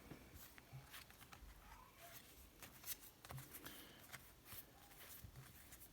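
Near silence, with faint scattered clicks and light rustles of trading cards and foil packs being handled.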